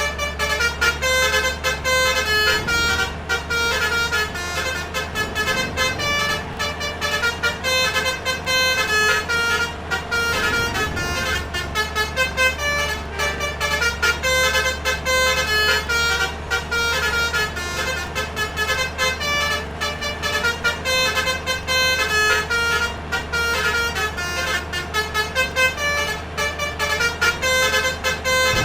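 Basuri multi-tone 'telolet' bus horns playing quick runs of changing notes over and over, over a steady low engine rumble.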